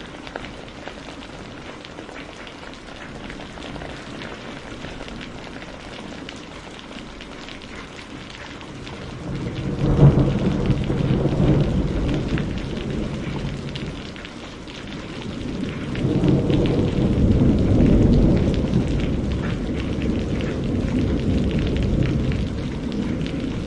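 Steady rain falling, with thunder: a roll that breaks out sharply near the middle and dies away over a few seconds, then a second, longer rumble swelling a few seconds later.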